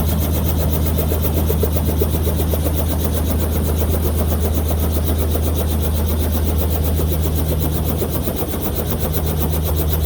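Small helicopter's rotor and engine running steadily, a rapid chopping pulse over a strong low drone.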